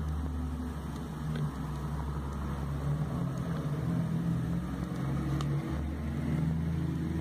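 A steady low hum, like a motor running, under the soft rustle and a couple of faint ticks of glossy catalogue pages being flipped quickly by hand.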